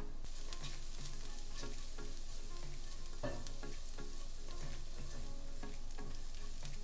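Chopped green onion sizzling in hot oil in a frying pan while it is stirred with a spatula. The sizzle comes in just after the start and then holds steady.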